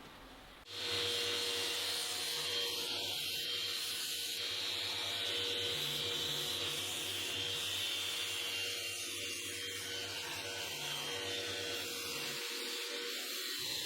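A small electric power tool motor switching on about a second in and then running steadily, with a faint whine that drifts slowly lower.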